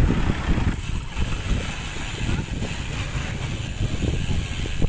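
Wind rushing and buffeting over the microphone of a camera on a moving bicycle, with road noise underneath.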